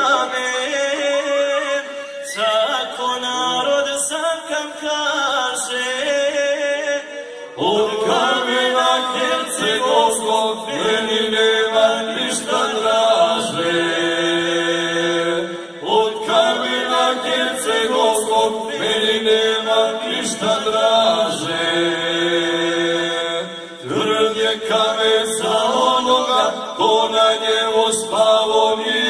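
Three male voices singing a Krajina folk song unaccompanied in close harmony through microphones. The song moves in long held phrases with short breaks between them.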